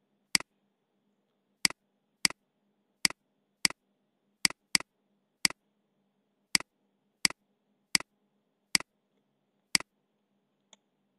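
Computer mouse button clicking: about a dozen sharp single clicks at irregular intervals, a few in quick pairs, over a faint steady low hum.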